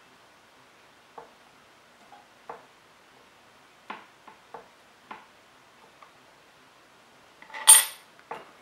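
Faint small clicks and snicks, about one a second, as a razor blade cuts excess wrapping thread off a fishing rod blank. Near the end, one much louder sharp clink that rings briefly.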